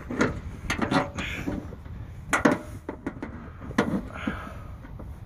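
A ratchet wrench is worked on a bolt holding a pickup's front fender, giving several separate sharp metallic clicks and knocks, some in quick pairs.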